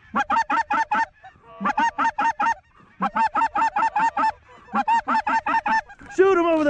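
Goose calling blown on a hand-held goose call: four quick runs of short, clucking notes, then one long call falling in pitch near the end.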